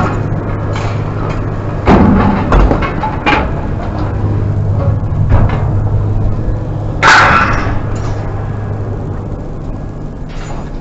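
A vehicle engine runs steadily under a few sharp knocks, with a louder bang about seven seconds in.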